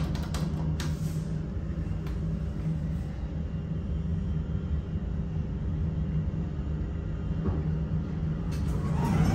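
Steady low hum and rumble of a hydraulic elevator car, with a few sharp clicks near the start as the concourse button is pressed. The hum grows louder near the end.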